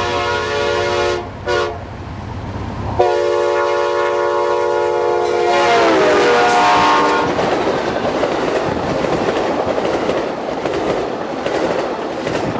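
Amtrak Genesis diesel locomotive's multi-chime air horn sounding a long blast, a short blast, then a long blast whose pitch drops as the locomotive passes close by. The bilevel passenger cars then rush past with a rumble and wheel clatter on the rails, slowly fading.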